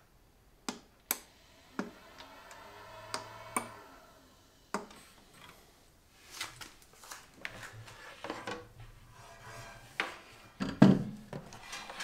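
A few sharp clicks from an eSun eBox filament dryer over its faint fan whir. Then the plastic dryer boxes are handled and shifted on a wooden workbench, with scattered knocks and rattles, loudest a little before the end.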